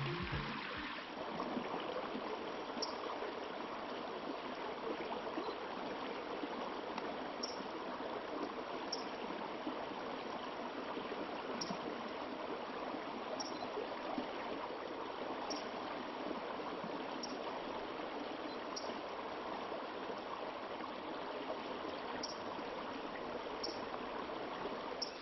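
Creek water running steadily, an even rushing hiss, with faint short high ticks now and then.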